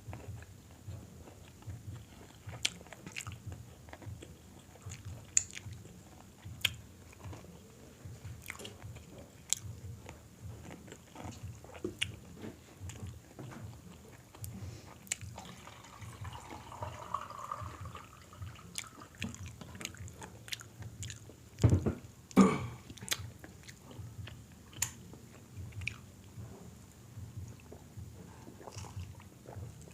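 Close-miked chewing and biting, with frequent small crunches and mouth clicks as crispy food is eaten. Two loud thumps come close together about two-thirds of the way through.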